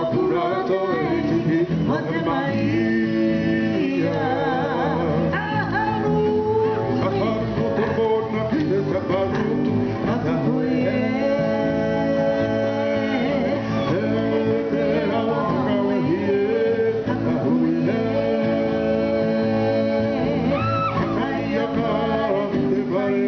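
Music: a Māori song sung by voices with instrumental accompaniment, playing continuously.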